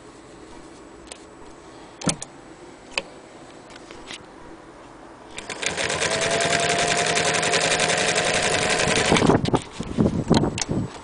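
Singer 306K electric sewing machine running for about four seconds, a steady motor whine over rapid needle clatter as it stitches, then stopping abruptly. Before it, a few sharp clicks; after it, several loud knocks.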